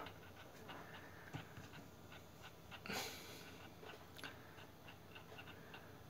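Quiet room with faint, fairly regular small ticks, and one soft breath about three seconds in.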